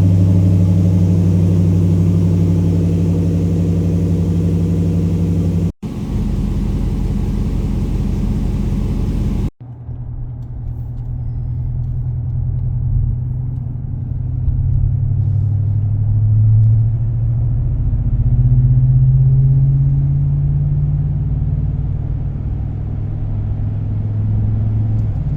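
Ram 1500's V8 running through a Ramjet stainless cat-back exhaust with a centre muffler and no rear muffler: a deep, steady idle, then, after two cuts, a closer pulsing idle and a longer low-pitched run that rises and falls gently in pitch a few times.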